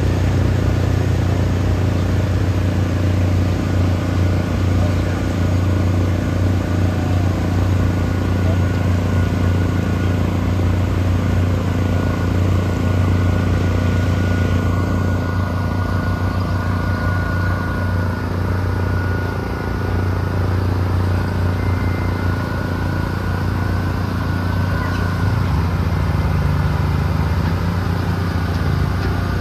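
Heavy truck engine running steadily under load, a deep constant hum with a slight change in its low pitch near the end.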